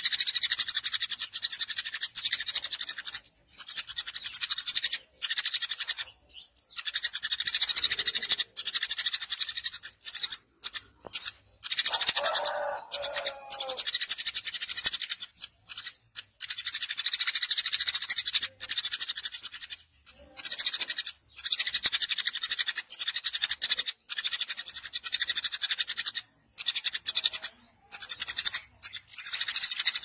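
Eurasian tree sparrow chirping incessantly: a dense run of fast, high-pitched chirps that stops and restarts abruptly many times, with a lower-pitched call about twelve seconds in.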